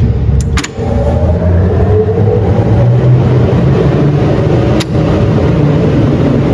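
Basement ventilation jet fans running, a loud steady hum with rushing air that rises slightly in pitch in the first few seconds, as they are tested through the dual-speed starter panel. A couple of sharp clicks cut in near the start and about five seconds in.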